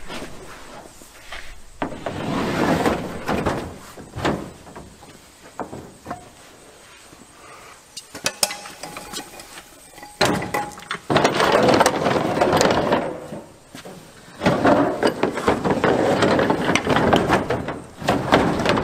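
A Ford 4R70W automatic transmission dragged across a plastic pickup bed liner toward the tailgate and onto a wooden platform, in three long scraping pushes with knocks and clunks between them.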